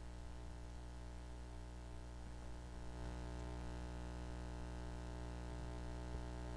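Steady low electrical hum with a faint hiss, a little louder from about three seconds in.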